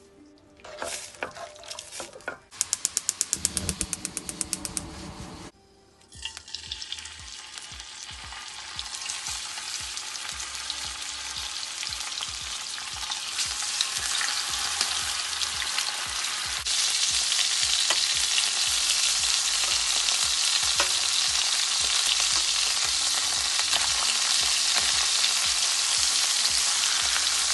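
Chicken pieces sizzling in hot oil in a frying pan, a steady hiss that builds and grows louder about halfway through. Near the start there are a few knocks, then a fast run of clicks lasting about two seconds.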